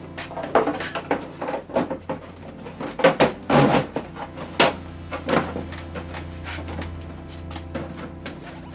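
A run of irregular knocks and clicks, loudest about three to four seconds in and thinning out after about six seconds, over a steady low hum.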